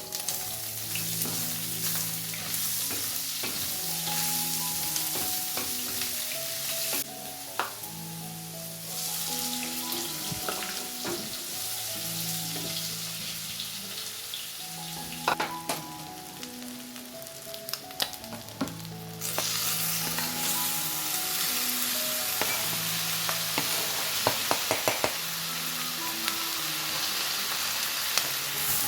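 Cow intestines (matumbo) sizzling as they fry in a pan, with a utensil stirring and clicking against the pan now and then. Background music with a melody plays underneath.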